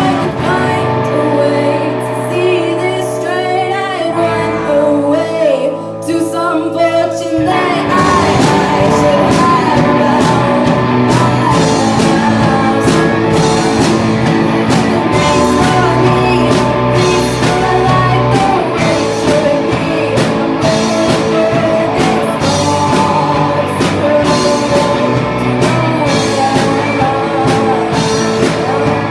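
Rock song with a sung vocal over guitar; a sparser passage gives way to the full, louder band about seven seconds in.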